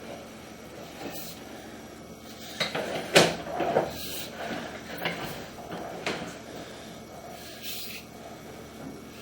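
Sewer inspection camera equipment being handled: a run of short knocks and scrapes, likely from the push cable and reel, with the loudest knock about three seconds in.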